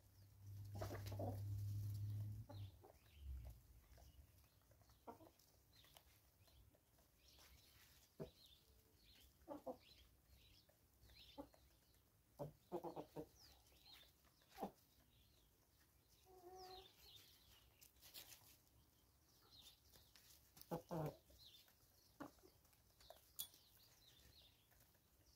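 Free-range chickens, hens and roosters, clucking now and then in short, scattered calls, with a louder pair of clucks near the end. A steady low rumble lasts about two seconds at the start.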